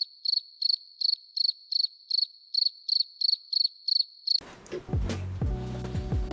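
Cricket chirping sound effect: short, high, even chirps at about three a second, stopping suddenly after about four seconds. This is the stock 'crickets' gag used for an awkward silence.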